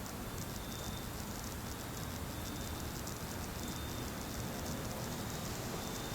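Steady low droning hum with a rapid, faint high pulsing over it and a thin high tone that comes and goes several times; to the recordist it sounds like the sky vibrating with a pulse.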